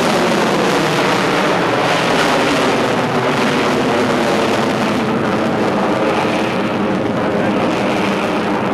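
Fighter jet's engines running loudly overhead during an aerobatic display: a steady rushing jet noise that grows duller about halfway through.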